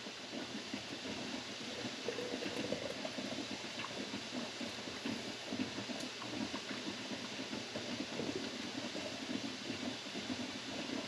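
Steady bubbling of water at a rolling boil in a water-bath canner, with a few faint clicks as jam is ladled into a jar.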